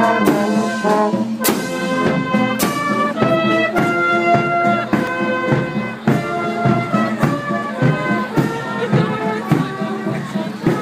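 Marching brass band playing a tune as it walks past, held brass notes over a drum beat about once a second.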